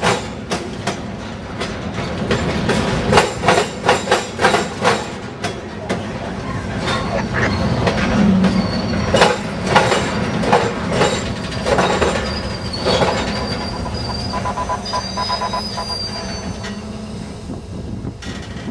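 Wheels of CSX coal hopper cars banging over a railroad diamond crossing, a steady rumble broken by quick irregular clusters of sharp clacks as each truck crosses the gaps. A faint high wheel squeal comes in about twelve seconds in, and the clacks thin out near the end.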